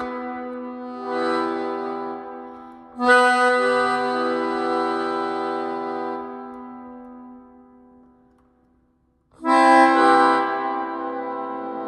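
Melodica playing slow, held chords in an improvisation. A long chord fades away to a moment of silence near the end, then a new chord swells in loudly.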